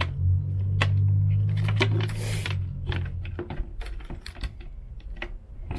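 Sharp metallic clicks and jiggling of a key being tried in a camper's exterior compartment door lock, with a brief scrape a little after two seconds in; the key is the wrong one and won't open the lock. A low steady hum underneath fades out about halfway.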